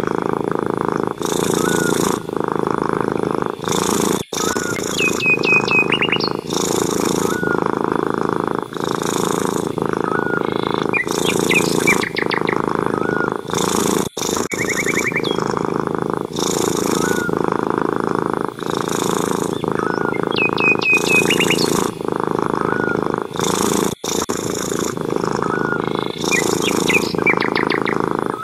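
Domestic cat purring loudly and steadily in regular pulses. Small birds chirp and trill in the background every few seconds.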